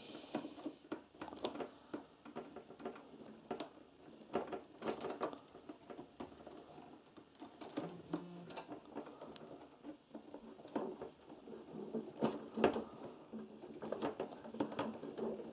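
Irregular light clicks, taps and small rattles of hands working on parts and wiring inside a MIG welder's open casing, with no steady machine running.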